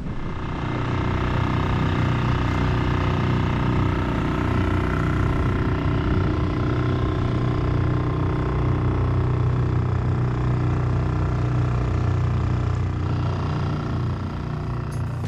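A boat's engine running steadily at constant speed, an even drone that eases off slightly near the end.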